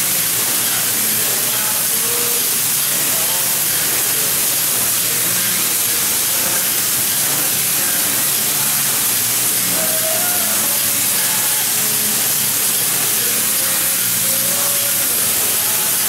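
Spray foam gun hissing steadily as it sprays open-cell foam insulation onto a metal roof, with a low steady hum underneath.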